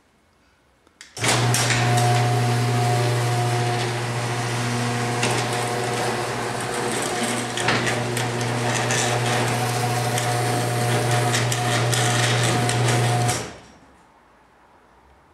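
Sears Craftsman 1/2 HP chain-drive garage door opener starting with a click about a second in, its motor humming steadily with the chain rattling along the rail as it moves the door, then stopping abruptly near the end.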